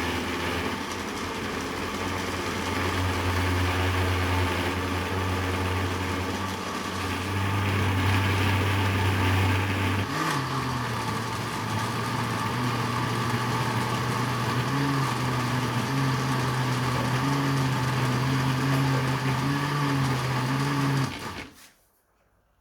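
Electric blender motor running steadily. About halfway through its pitch steps up and then wavers as it spins faster, and near the end it cuts off.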